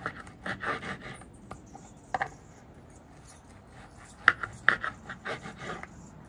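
Knife sawing through grilled tri-tip on a wooden cutting board, the blade rasping in short back-and-forth strokes, in three runs with pauses between.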